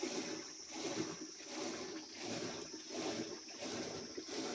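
Curd being churned in a clay pot with a rope-spun wooden churning stick, making buttermilk and butter for ghee. The liquid sloshes and swishes in an even rhythm, about one and a half strokes a second, as the stick is twirled back and forth.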